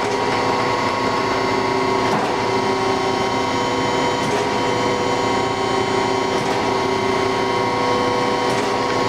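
1988 Chevalier FSG-1640AD surface grinder running in its automatic cycle: a steady hum from the spindle motor and hydraulic system, with a light click about every two seconds as the table reverses on its back-and-forth stroke.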